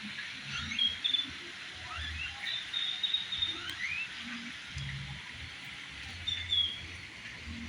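Scattered short high-pitched animal chirps and quick rising whistles, several in a row about a second in and again near the middle and later on, over a steady high hiss.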